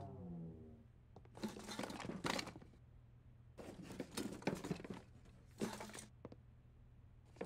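Cartoon sound effects of someone rummaging through attic clutter: several short, quiet bursts of objects clunking, rustling and being shifted about, with pauses between them.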